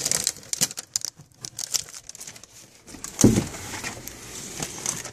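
Plastic shrink-wrap on a boxed toy crinkling as it is handled, in a run of short crackles, with one louder bump a little over three seconds in.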